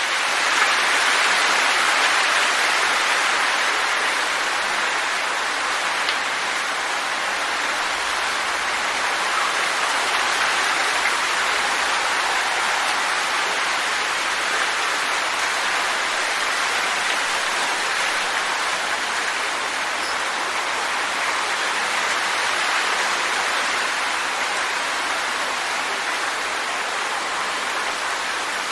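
Strong wind sound effect: a steady, dense rushing hiss that holds without distinct gusts and eases only slightly over the stretch.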